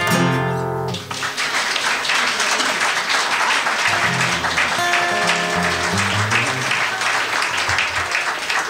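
Acoustic guitars end a song on a final chord that rings for about a second, then audience applause takes over, with a few guitar notes played under the clapping midway.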